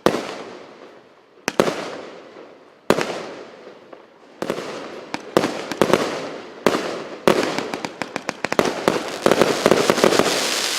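A 25 mm, 128-shot firework cake firing: sharp bangs about every second and a half, each with a fading hiss. From about seven seconds in the shots come faster and merge into dense crackling.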